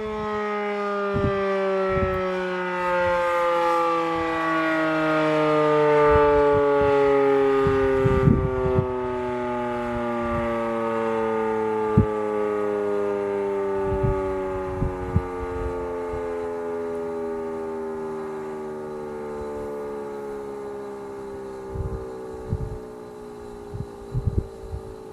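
Federal Signal Model 5 electromechanical warning siren winding down at the end of its short-alert cycle. Its wail falls slowly and steadily in pitch and fades. A few brief low thumps come through along the way.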